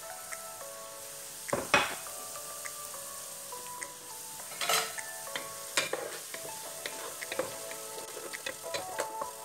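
Chopped onions and garlic sizzling in hot oil in a pot, with a steady hiss and fine crackles. A few sharp knocks of a utensil against the pot come through, and a wooden spoon stirs the onions near the end.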